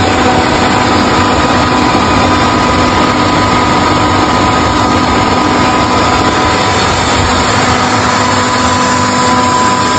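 Funuoer Smart6000 air compressor running steadily at full load, its motor driven at 200 Hz: a loud, even machine whir with a few steady tones held through it.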